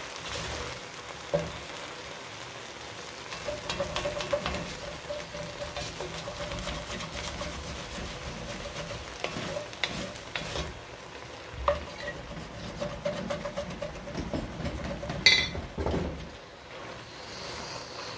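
Wooden spoon stirring and scraping sliced onions in an enamelled cast-iron pot while they sizzle, a splash of water lifting the browned bits off the bottom of the dry-roasted onions. Irregular scrapes and taps of the spoon against the pot, with one sharp knock about fifteen seconds in.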